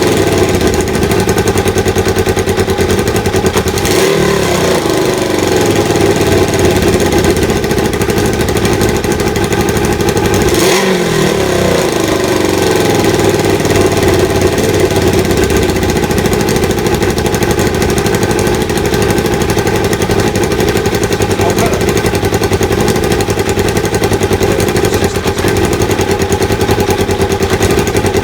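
Kawasaki ZL600 Eliminator's engine running steadily just after starting, on freshly adjusted carburettor air/fuel mixture screws. The throttle is blipped about four and eleven seconds in, and the revs ease back down after each.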